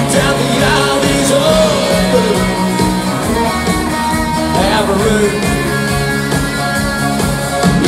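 Live country band playing a song: a man sings lead over electric and acoustic guitars and a steady drum beat.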